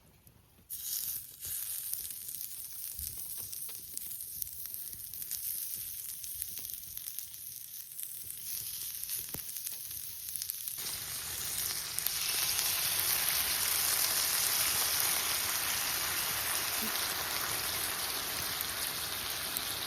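Food sizzling and crackling as it fries in a hot pan, a dense hiss that comes in suddenly just under a second in and grows louder about eleven and again twelve seconds in.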